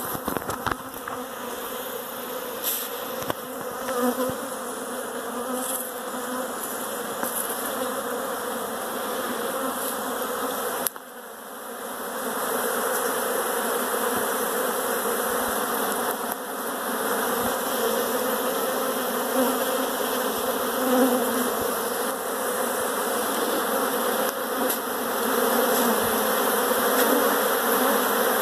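Many honey bees from a colony nesting in a house's eave, buzzing in a dense, steady hum. The hum drops briefly about eleven seconds in, then comes back louder.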